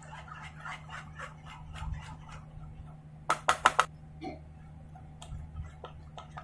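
Spoon stirring and mashing wet jamun (black plum) pulp in a plastic bowl: a run of quick scraping clicks, then four sharp knocks in quick succession about three and a half seconds in, then scattered clicks, over a steady low hum.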